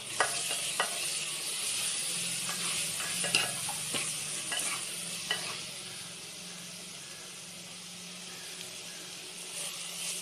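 Masala powders and onions frying in oil in a pot, with a steady sizzle, while a wooden spatula stirs and scrapes, knocking against the pot; the knocks stop after about five seconds and the sizzle goes on. This is the stage of sautéing the raw spice powders in oil until their aroma changes.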